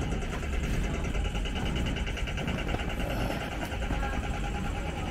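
Steady outdoor city street background: a continuous low rumble of traffic and vehicle engines.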